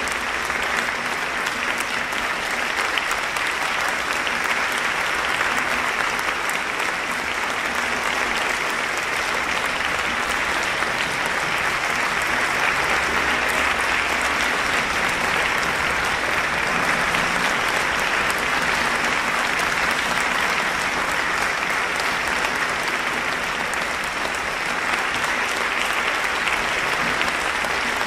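Audience applauding steadily in a concert hall: dense, continuous clapping with no breaks.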